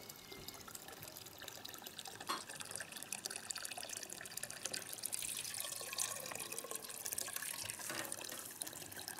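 Water from a hose pouring steadily in a thin stream into a partly filled aluminium pot, splashing on the water surface, with a couple of slightly louder splashes, about two seconds in and near eight seconds.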